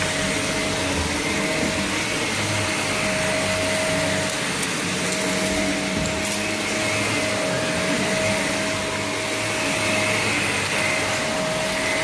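Upright vacuum cleaner running steadily while pushed over carpet: a constant motor whine over a broad rushing hiss of suction.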